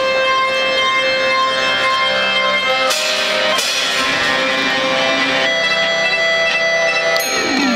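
One-man band music led by a piano accordion, holding steady chords and melody notes. A brief burst of noise about three seconds in, then a run of falling slides near the end.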